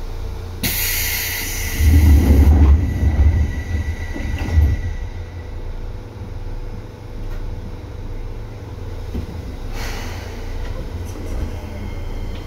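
Seibu 2000-series electric commuter train heard from inside the car: a sharp air hiss about a second in, then loud low rumble with knocks for a few seconds, settling into a steady running rumble, with another short hiss near ten seconds.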